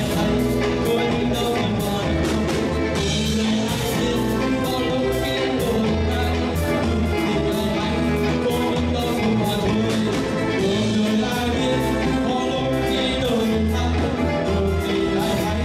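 A live band of electric guitar, bass guitar, drum kit and keyboard plays a steady beat behind a male singer's amplified vocal.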